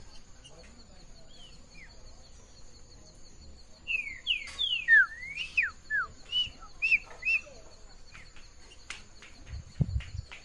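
A wild songbird singing: a few soft chirps, then about four seconds in a burst of around ten loud, clear whistled notes, most sliding downward. A low thump near the end.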